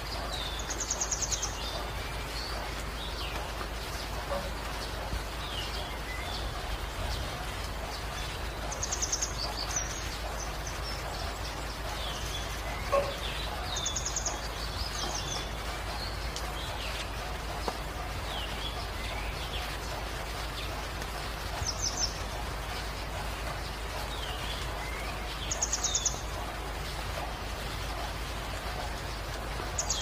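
Steady rain hissing with birds calling over it: a short high trill every few seconds and many small falling chirps.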